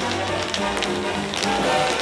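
Tap shoes striking the stage floor in quick rhythmic clicks as dancers perform a routine, over backing music.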